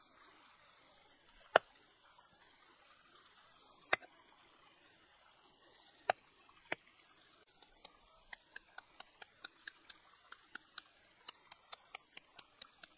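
Knife blade cutting into a raw carrot held in the hand: a few separate sharp chops, then from about halfway on a quick even run of lighter cuts, about four a second.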